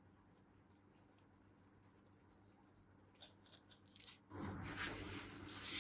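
Small metal parts clinking and rattling as they are handled, with a rustle of handling noise. It starts with light clicks about three seconds in and grows louder about a second later.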